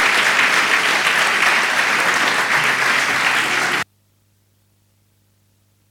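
Audience applauding, cut off suddenly about four seconds in, leaving near silence with a faint low hum.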